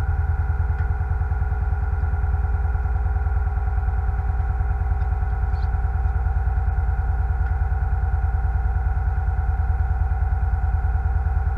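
Seine boat's engine running steadily underway: an even, fast-pulsing low drone with a steady whine above it.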